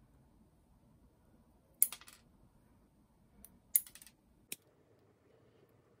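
Steel nail clipper snipping through a long gel nail: sharp clicks, a quick cluster about two seconds in and another just before four seconds in, then a single lighter click.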